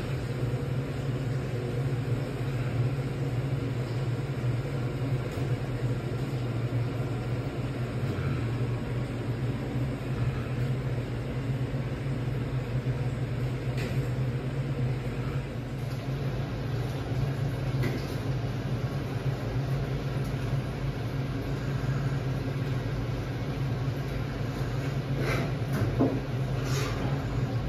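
Steady low hum of a shop's refrigerated display cases and ventilation, with a few faint knocks.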